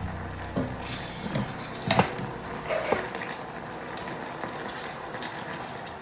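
Thick barbecue sauce bubbling in a saucepan on a gas burner as it reduces to a paste, with a few short pops and plops scattered through the first three seconds, the loudest about two seconds in, over a steady low hum.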